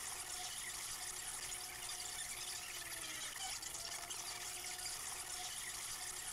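Hewescraft 180 River Runner jet boat under way, powered by a 250 hp BRP Rotax jet: a steady rushing hiss of water and air past the hull, with a faint steady whine from the jet drive.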